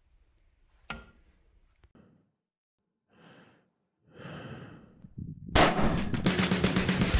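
A single sharp click about a second in, then two soft breaths. Music starts loudly about five and a half seconds in and runs on.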